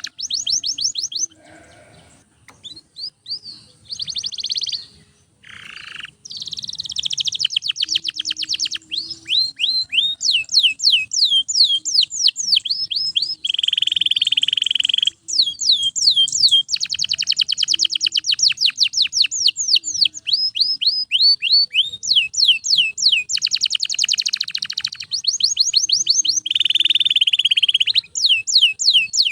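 Domestic canary singing nonstop in long, fast trills of rapidly repeated downward-sweeping notes, broken twice by a lower buzzy roll. The first few seconds hold only short, scattered phrases before the full song takes over.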